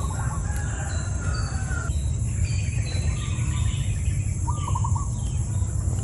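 Birds chirping and a chicken calling in the background, over a steady low rumble.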